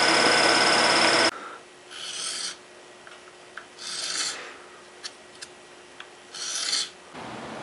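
A milling machine runs with its end cutter plunging into a wooden pistol grip, then stops abruptly after about a second. Three separate strokes of a small round file rasp across the edge of the wooden grip, about two seconds apart, with a few light clicks between them.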